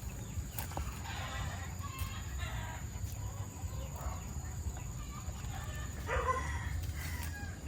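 Chickens clucking and a rooster crowing, with the loudest call about six seconds in, over a steady low rumble.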